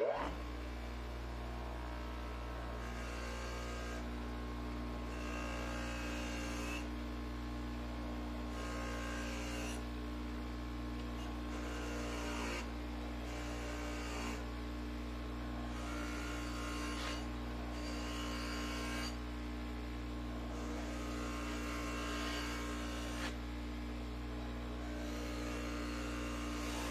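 Ryobi bench grinder running with a steady motor hum while a steel knife blade is pressed against the spinning wheel in about eight separate passes, each a scraping of a second or two, as the blade is ground and sharpened.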